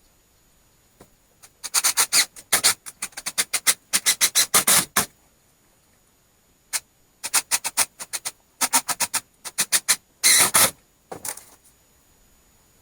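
Fast runs of sharp knocks, about four or five a second, in several bursts, with a longer dense rattling burst near the end.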